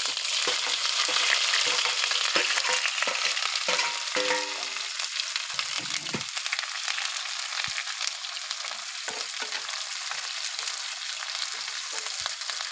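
Sliced onions frying in hot oil with whole cumin in a nonstick wok, sizzling just after going in, while a steel spoon stirs them with scattered scrapes and knocks against the pan. The sizzle is loudest in the first few seconds and eases a little after.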